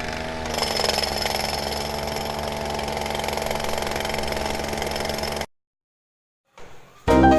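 A motor running steadily with a constant hum and a thin high whine, cut off abruptly about five and a half seconds in; music starts near the end.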